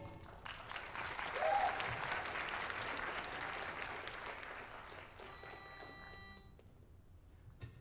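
Audience applauding, dying away over about six seconds.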